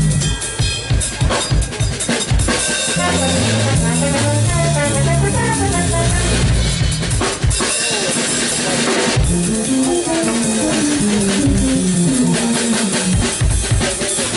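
Live jazz trio jamming: a drum kit driving the groove under keytar lines, with trombone.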